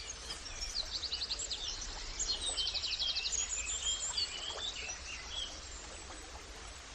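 Birdsong over a steady outdoor noise bed: several birds chirping, with two fast trills about one and two and a half seconds in, the busiest stretch in the middle.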